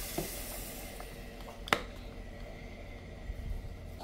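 A faint hiss fades out, then one sharp plastic click a little under two seconds in: the steam iron's water-filler flap snapping shut.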